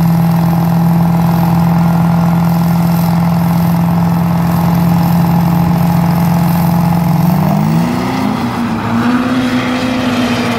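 Duramax diesel pickup trucks on a dirt drag strip start line, their engines holding a steady note before launching about seven seconds in, when the engine note rises as they accelerate away.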